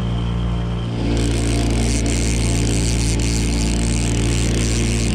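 Boat motor running steadily at an even speed, with wind and water hiss that gets louder about a second in.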